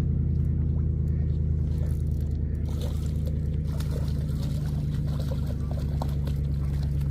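Steady low hum of an engine or motor running at an even speed, with light clicks and rustling over it from about midway.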